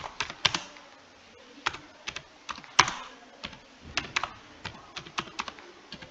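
Typing on a computer keyboard: irregular keystroke clicks, pausing for about a second near the start, with one sharper stroke near the middle.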